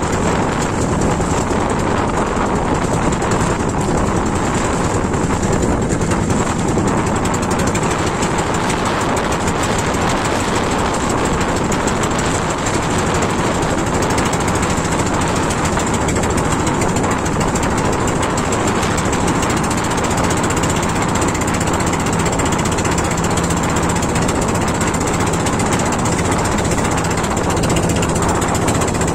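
Small outrigger fishing boat's engine running steadily under way: a loud, rapid, unchanging engine beat.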